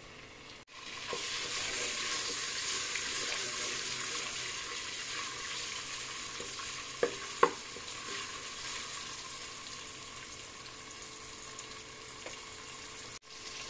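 Ginger-garlic paste sizzling as it fries in hot oil in a metal pot, stirred with a spatula. The sizzle starts about a second in and slowly eases off, with two sharp clinks of the spatula against the pot about halfway through.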